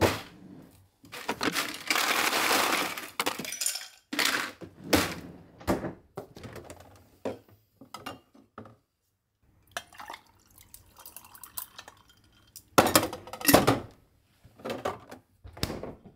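Kitchen handling sounds at a refrigerator: a series of knocks and clinks of bottles, a plastic pitcher and dishes, with a longer rushing stretch in the first few seconds and two louder knocks near the end.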